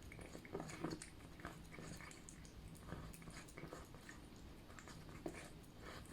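A cat eating wet food in jelly, with irregular small chewing clicks.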